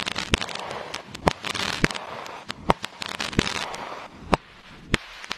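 Fireworks going off: about six sharp bangs spread over the few seconds, over a continuous crackle.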